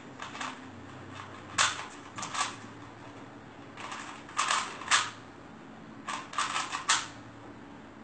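Rubik's cube being twisted quickly by hand: runs of sharp plastic clacks in several bursts, with short pauses between the bursts.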